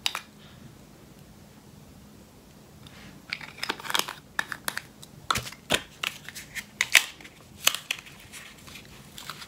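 Plastic wrapping crinkling as it is peeled off a small round makeup container. Irregular sharp crackles and clicks begin about three seconds in and continue to the end.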